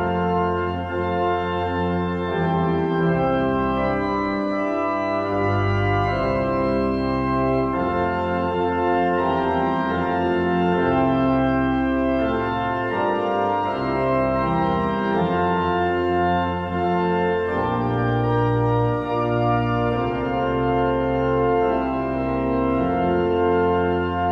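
Organ music playing slow, held chords.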